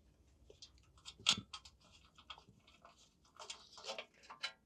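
Light clicks and scrapes of hand tools on metal bolts, as loose end-plate bolts with stripped threads are worked out of an engine block. The sharpest click comes about a second in, with a run of clicks near the end.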